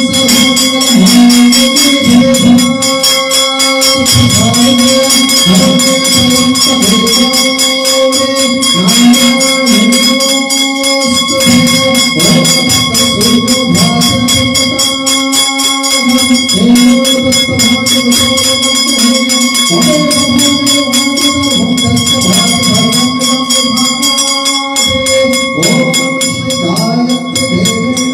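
Hindu devotional aarti music: a voice singing a melody over a fast, steady jingling percussion beat, with sustained ringing tones held underneath.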